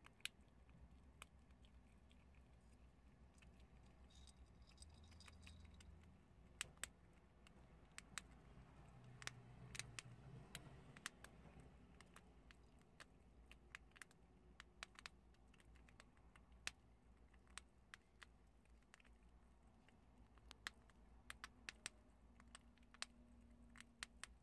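Prairie dogs chewing hard dried chickpeas: crisp, irregular crunches and clicks, some in quick clusters, over a faint low hum.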